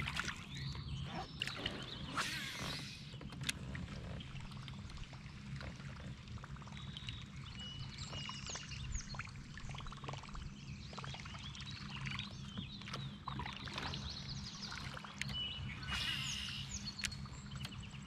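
Birds chirping and singing along a wooded creek, over a steady low hum, with scattered small clicks and light water sounds.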